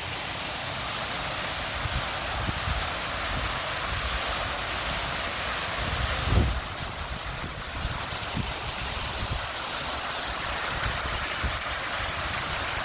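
Steady rushing of a waterfall, with irregular low rumbling underneath and a dull bump about six seconds in.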